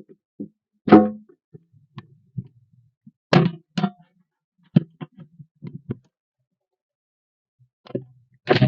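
Irregular knocks and clunks of metal camp-kitchen items being handled and packed into a steel ammo box, with a loud clunk about a second in and another pair near the end.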